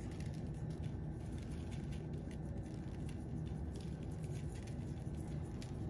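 Seasoning sprinkled onto raw rib tips in a bowl, a light patter of grains, over a steady low hum.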